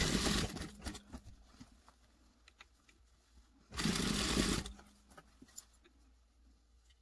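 Industrial sewing machine stitching through folded knit fabric in two short runs: one at the very start for about half a second, and another about four seconds in for about a second. Faint clicks and rustling of the fabric being repositioned come between the runs.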